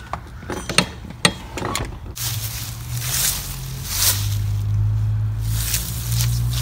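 A few sharp clicks and knocks as a house door is opened and passed through, then, from about two seconds in, wind buffeting a handheld microphone outdoors: a loud hiss over a low, steady rumble.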